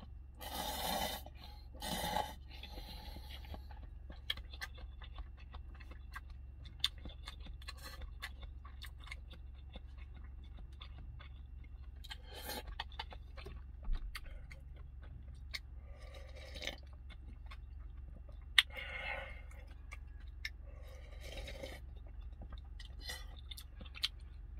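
Someone eating hot tempura udon cup noodles: wet slurps of noodles, the first right at the start and more spread through, with small chewing clicks in between. A steady low hum runs underneath.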